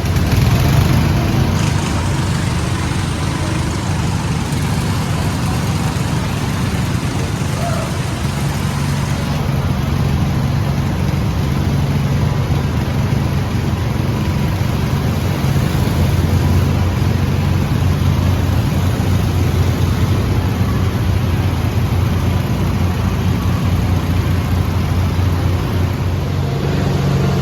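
Motor vehicle running steadily, engine hum mixed with road noise, with no clear change in speed.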